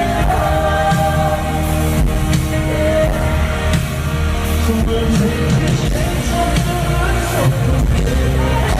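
Live pop-rock band playing with long, held sung notes over a steady beat.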